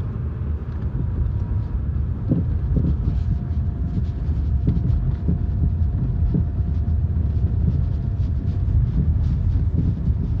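Lada Vesta on the move, with a steady low rumble and irregular sharp knocks from the front suspension: a strong front-end knock that the owner puts down to worn strut mounts.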